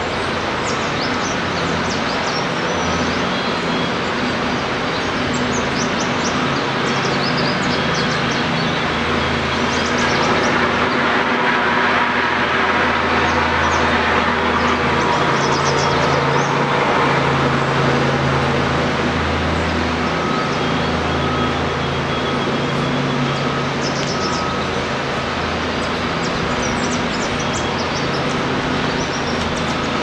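Steady rumble of traffic or engine noise with a low hum, swelling louder for several seconds in the middle, while small birds give faint, short high chirps now and then.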